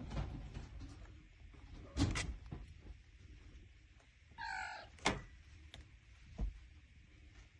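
Kittens scuffling and play-fighting, with a few sharp knocks and thumps against their plastic bed and one short, high-pitched kitten mew about halfway through.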